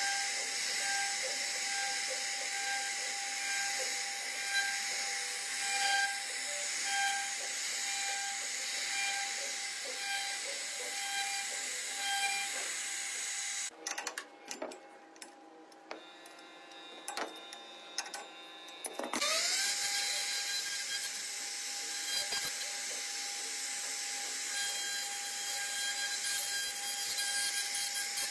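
CNC router spindle carving wood: a steady high-pitched whine over the hiss of the cutting. About halfway through the whine drops away for several seconds, then rises back up to pitch as the spindle spins up again.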